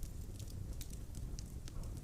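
Wood fire burning in a fireplace: a steady low rumble of the flames with irregular sharp crackles and pops from the logs, several in the two seconds.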